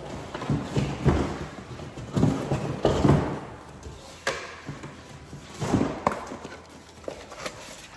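Cardboard packaging being handled: a white cardboard insert is pulled out of a shipping box, rustling and scraping, with a few irregular knocks against the box.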